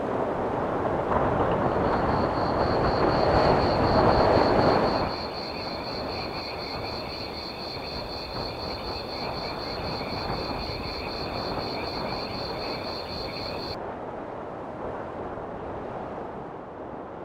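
A passing vehicle: engine noise that swells and then drops away about five seconds in. It is followed by steady outdoor noise with a high, evenly pulsing buzz that cuts off abruptly about fourteen seconds in.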